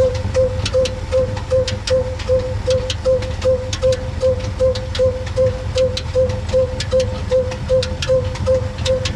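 Desi stone flour mill (atta chakki) grinding wheat, driven by an old black Ruston-type diesel engine: a steady low hum with a regular beat and pulsing whine about two and a half times a second, and scattered sharp ticks.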